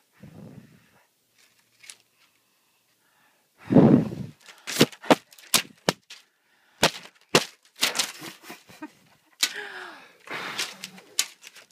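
A low thump about four seconds in, then a run of sharp, close knocks and taps as a baby bats at the recording phone with a thin stick and her hand, with a brief baby vocal sound among them near the end.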